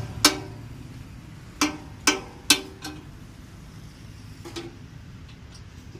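Sharp metallic knocks on the steel frame of a platform weighing scale, each ringing briefly: four loud ones in the first three seconds, then two fainter ones, over a steady low hum.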